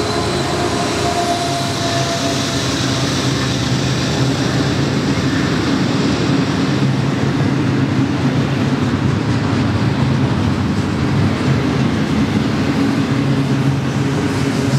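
Double-stack intermodal freight train's loaded container well cars rolling past on the rails, a steady sound of wheels on track with no break.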